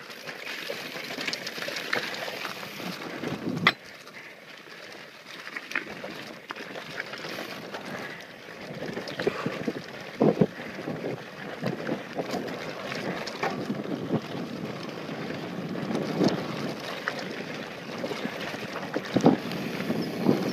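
Mountain bike rolling fast down a rocky dirt trail: steady tyre noise on loose dirt and gravel with wind on the microphone, broken by frequent sharp knocks and rattles as the bike hits rocks.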